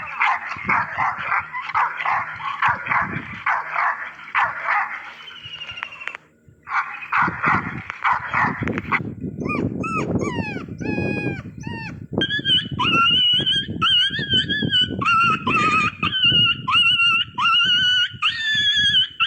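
Dog barking in quick runs of yaps, a short break, then more barks; about halfway through it switches to high, wavering whines and howling cries, each held for a second or so.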